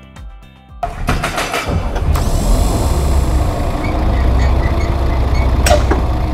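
Construction-themed logo sound effects: heavy machinery with a deep rumble, a hiss about two seconds in, scattered small beeps and a sharp clank near the end, following a short tail of music.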